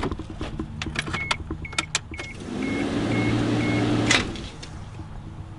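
Toyota Celica AllTrac starter motor whirring for just under two seconds, its pitch rising and then holding, before it cuts off without the engine catching. Before that there are clicks from the key and ignition, and a warning chime beeps about twice a second.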